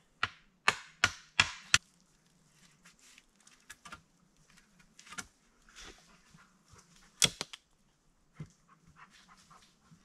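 Five quick, sharp blows of a hand tool on wood, about three a second, then lighter knocks and rustling as a branch is handled, with a loud double knock about seven seconds in and a single one about a second later.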